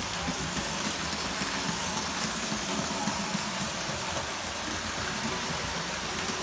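Model railway train running steadily along the track, a continuous motor hum with rolling wheel noise.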